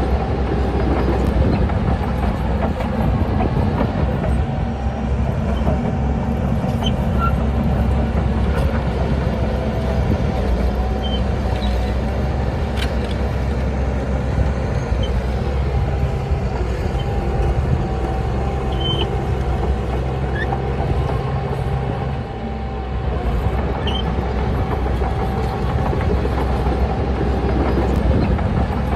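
Heavy diesel engine of a Shantui crawler bulldozer running steadily under load, with a thin whine above the engine rumble; the sound dips briefly about three-quarters of the way through.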